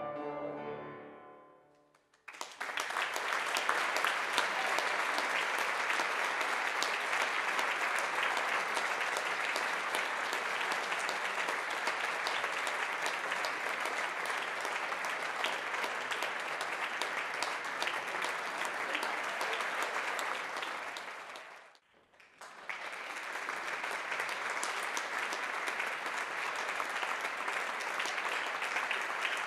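The last notes of the music die away over the first two seconds, then the audience in the concert hall applauds steadily. About 22 seconds in the applause drops out briefly and then resumes.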